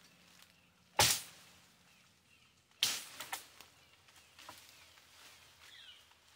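Sword blade chopping into the branches of a felled tree: two sharp strikes about two seconds apart, the second followed by a few smaller cracks and leaves rustling.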